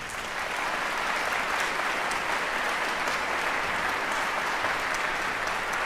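Concert audience applauding, a steady even clapping of many hands.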